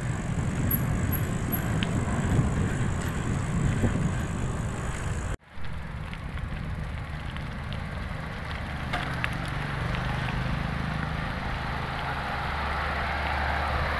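Wind noise on the microphone and tyre rumble from a bicycle riding along a rough concrete road. About five seconds in, the sound cuts out abruptly, then comes back quieter and steadier.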